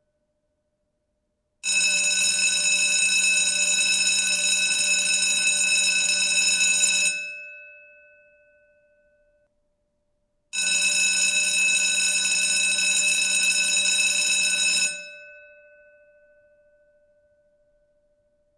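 Electric lobby bell ringing continuously twice, each ring lasting about five seconds with a few seconds' pause between. Each ring stops abruptly and then fades out.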